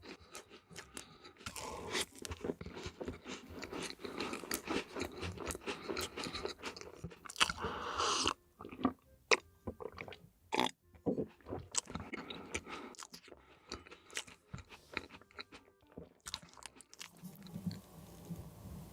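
Close-miked biting and crunching of crisp food, with chewing in between: dense, crackly mouth sounds. There is one louder, longer crunch just before halfway, and the sounds thin out near the end.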